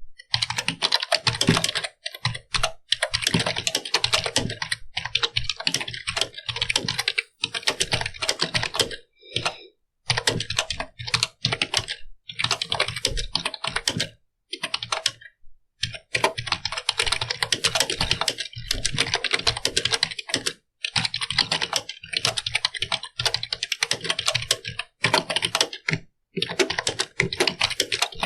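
Computer keyboard being typed on: fast runs of keystrokes, broken by short pauses every few seconds.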